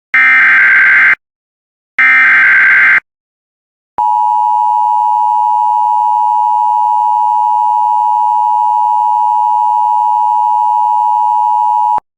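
The second and third bursts of an Emergency Alert System SAME header, digital data squawks about a second long each and a second apart. After a one-second pause comes the EAS two-tone attention signal (853 and 960 Hz), held steady for about eight seconds and then cutting off abruptly.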